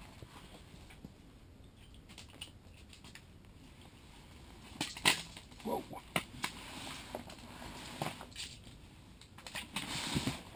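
Sharp knocks and slaps from about halfway through, the loudest among them: a just-caught perch landing and flopping on the ice, along with fishing tackle being handled. Another cluster of knocks comes near the end.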